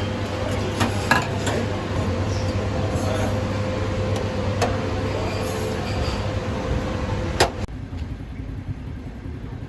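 Busy kebab-kitchen ambience: a steady machine hum with a few sharp metal clinks of utensils. About three-quarters of the way through it drops suddenly to a quieter, duller background.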